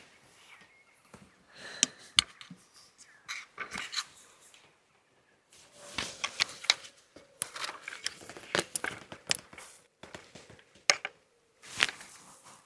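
Photography gear being handled and set up: scattered sharp clicks, scrapes and rustling at close range.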